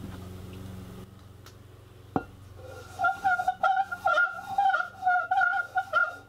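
A single tap, then a graphite-filled PTFE piston ring being lapped by hand in circles on 400-grit wet and dry paper, squeaking in a wavering pitched tone that pulses with each stroke.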